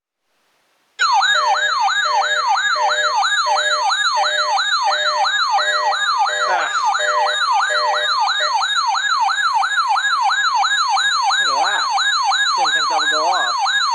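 Electronic alert siren starting about a second in, a tone sweeping rapidly up and down about three times a second, with a pulsing lower beep beneath it for the first several seconds.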